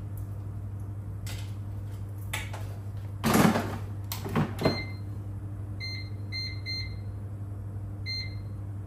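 Air fryer basket pushed shut with a scraping clatter, followed by a couple of sharp clicks. Then short electronic beeps, four of them, from the air fryer's touch panel as the cooking settings are keyed in, over a steady low hum.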